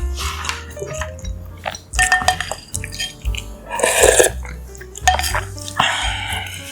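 A spoon clinking and scraping against a bowl in short, irregular bursts, with wet eating sounds between them.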